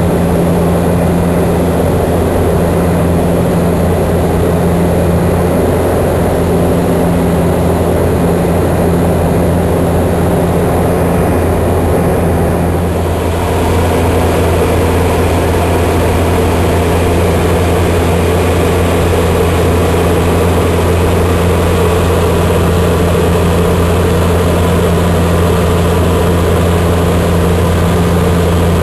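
Turboprop engine and propeller of a de Havilland Canada DHC-2 Turbo Beaver droning steadily in flight, with a brief small dip in level about halfway through.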